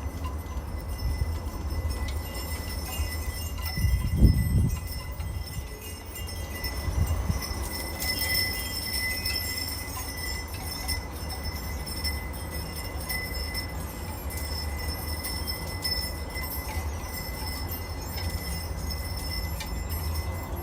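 Porch wind chimes ringing in the breeze over a low rumble of wind on the microphone, with a stronger gust about four seconds in.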